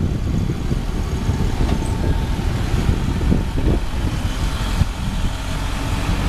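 Isuzu Elf light dump truck's diesel engine running as the truck drives slowly past at close range, a steady low rumble.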